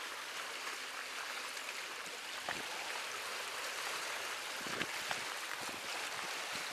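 Small sea waves washing over shoreline rocks: a steady, quiet wash of water with a couple of faint knocks.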